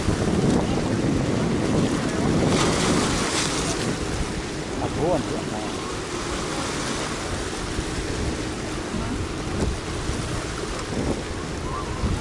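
Wind buffeting the microphone over choppy sea water lapping against shore rocks, with a brief louder rush about three seconds in.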